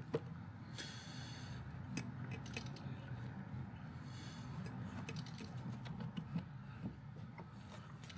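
Faint, scattered light metallic clicks and rattles as the BMW N57 engine is turned over slowly by hand and the new timing chain feeds in over the sprockets, over a low steady hum.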